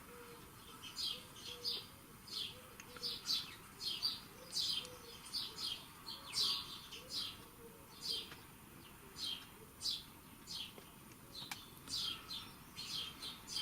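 Small songbird chirping from a birdsong recording played back in the room: short, high, falling chirps repeated about one and a half times a second.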